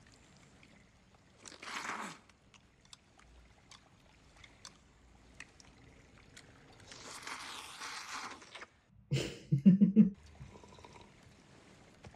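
Sake poured into a small cup from the film's soundtrack: a short pour about two seconds in and a longer one around seven seconds, with light clicks of tableware. A brief, loud, low sound about nine seconds in is the loudest thing.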